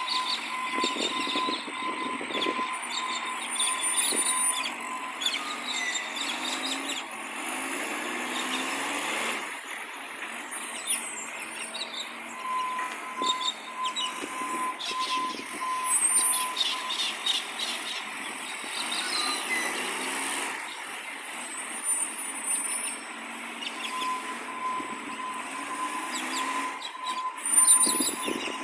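Garbage truck working on a collection round, its engine running and revving up and down twice. A steady high tone sounds on and off three times, and birds chirp faintly.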